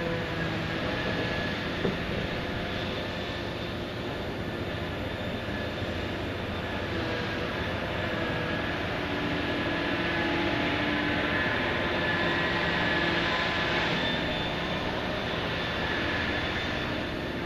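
Heavy backhoe dredger machinery running steadily: a dense mechanical rumble with faint whining tones, swelling slightly in the second half, and one short knock about two seconds in.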